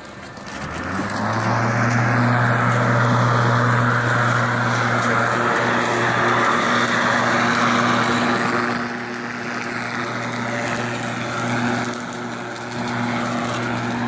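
Battery-powered remote-control lawn mower's electric motor spinning up about half a second in, then running with a steady hum and a whirring noise, easing off a little twice near the end.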